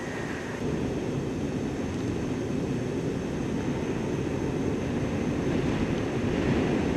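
Blizzard wind of 50–60 mph rushing across the microphone: a steady, low, gusting rumble with no distinct events. It grows a little louder about half a second in.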